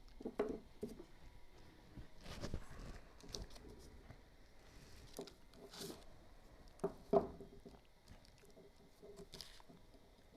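Light, irregular clicks, taps and rustles of small metal clock parts and tools being handled on a workbench, with a few sharper clicks about two and a half, six and seven seconds in.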